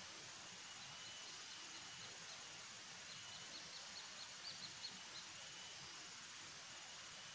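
Faint steady forest ambience hiss with a small animal's short high chirps. The chirps come a few at a time early on, then in a quickening run about three to five seconds in.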